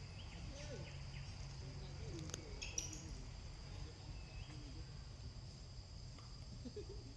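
Outdoor ambience: a steady high insect drone with low rumble underneath, scattered faint chirps and short animal calls, and a few sharp clicks about two and a half seconds in.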